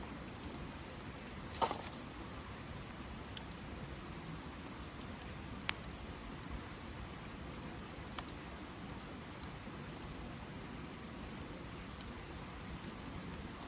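Wood campfire crackling: a steady low hiss with scattered sharp pops, the loudest about two seconds in.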